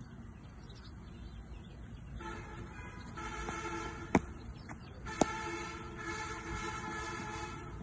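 A cricket ball bowled and hit: two sharp knocks about a second apart, the later one as the ball meets the bat. Under them is a steady droning tone of several pitches from about two seconds in.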